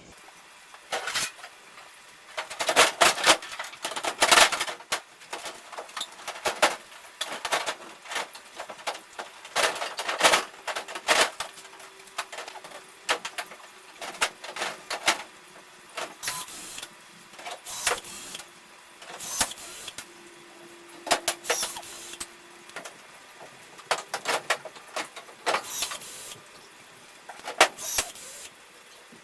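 Irregular clanks, clicks and knocks of hand-tool work on a race car, some in quick clusters. A faint steady hum runs through the middle part.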